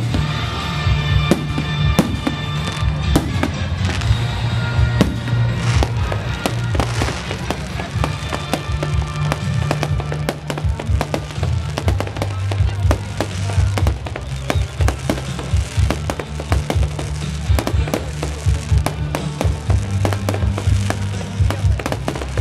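Fireworks exploding in a dense, irregular barrage of bangs and crackles, with music playing underneath.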